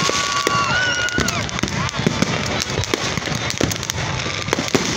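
Fireworks popping and crackling in quick, irregular bursts over the steady chatter of a large crowd.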